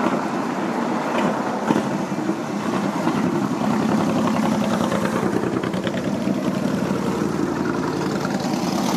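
A classic car's engine running steadily at idle, a rapid even pulsing, with a single sharp click near two seconds in.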